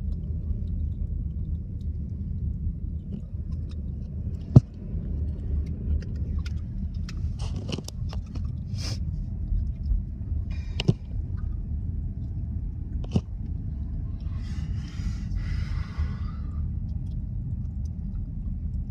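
Steady low rumble of a car driving, heard from inside the cabin, with a few clicks, one sharp loud click about four and a half seconds in, and a brief hiss about three-quarters of the way through.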